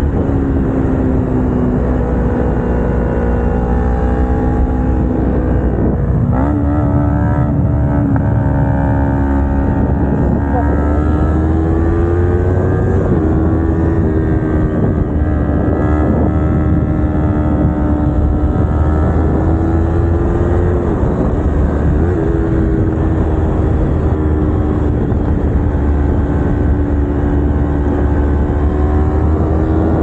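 Kawasaki Ninja 250R's parallel-twin engine running under way, heard from the rider's seat. Its pitch jumps up sharply about six seconds in, then dips and climbs again several times as the revs change, with a steady low rumble underneath.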